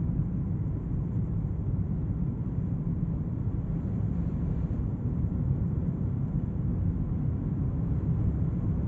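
Camper van driving on an open road: a steady low rumble of road and engine noise.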